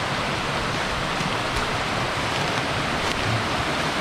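Creek waterfall rushing steadily: a loud, even hiss of falling water. This is the noise that carries to the nearby campsite all night.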